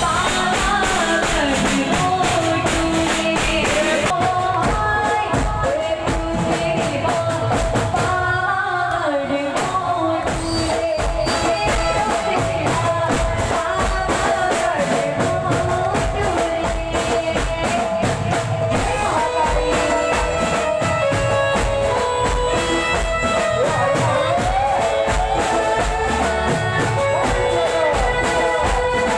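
Live music with a fast, steady drum beat under a melody line and singing; the drums drop out briefly about eight seconds in, then pick up again.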